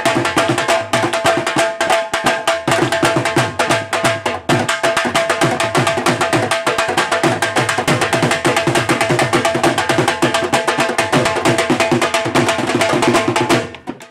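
Two dhols, double-headed barrel drums beaten with sticks, playing a fast jhumar dance rhythm in dense, even strokes. The drumming breaks off shortly before the end.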